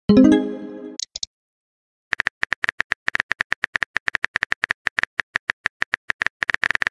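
A short pitched message tone that fades out over about a second, then after a brief silence a long run of quick synthetic keyboard tap clicks, several a second, as a reply is typed in a texting app.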